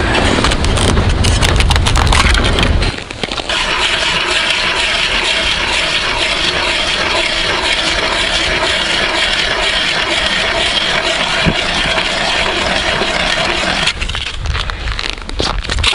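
Hand ice auger cutting a hole through thick lake ice: a steady grinding scrape that starts a few seconds in and runs about ten seconds, with a low rumble and scattered knocks before it and a few knocks and clicks after it stops.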